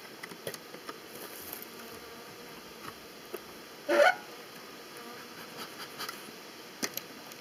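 A hive tool and hands working a wooden nuc box, making light clicks and scrapes, with one louder, brief scrape about four seconds in.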